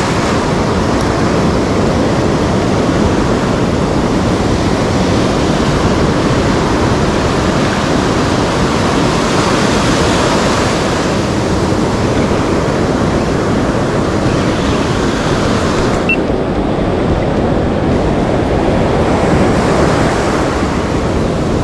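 Ocean surf breaking and foaming up a sandy beach, a steady loud rush of noise with wind on the microphone; the hiss dulls slightly about sixteen seconds in.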